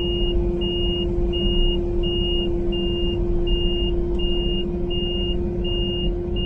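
Kubota KX080-4 excavator working as it pushes a tree over, heard from inside the cab: a steady diesel engine hum and rumble. Over it, a high electronic warning beeper repeats evenly, about three beeps every two seconds.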